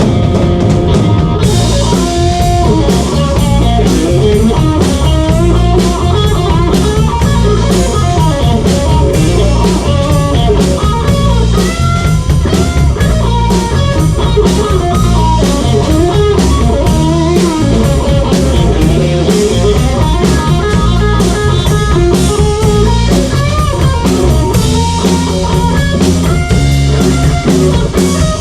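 Blues band playing an instrumental break: a lead guitar solo with bent notes over a steady drum kit beat.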